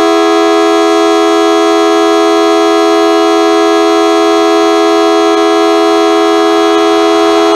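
Federal Signal Model 2T dual-tone outdoor warning siren sounding loud and steady during a test, its chord of two held tones not rising or falling. It sounds low pitched, which the recordist takes to mean it does not sound too good.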